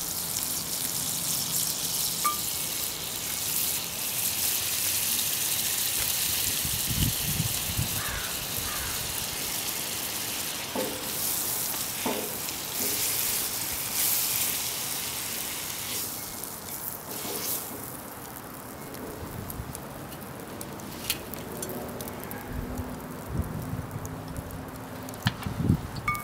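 Butter sizzling in a cast iron skillet over wood coals as bread is pressed into it. The sizzle is loud at first, then drops away sharply about two-thirds of the way through.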